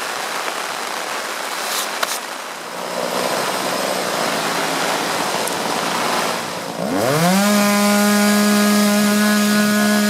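Steady hiss of heavy rain and wind, then about seven seconds in a two-stroke chainsaw revs up with a rising pitch and runs steadily at full throttle, cutting up a fallen cedar.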